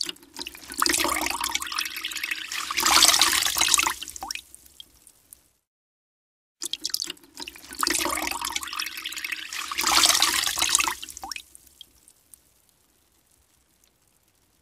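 Wet clothes wrung out by hand: water streams and splatters down, then thins to drips. It happens twice, with about a second of silence between, and a few faint drips follow near the end.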